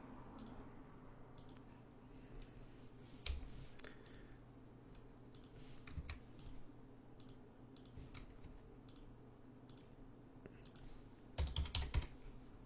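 Computer mouse clicks and keyboard key presses: single clicks every second or so, then a quick run of several keystrokes near the end. A faint steady low hum lies underneath.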